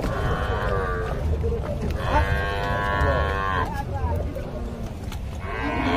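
Cattle mooing. One call trails off in the first second, a long moo lasting about a second and a half comes near the middle, and another begins at the very end, over a steady low rumble.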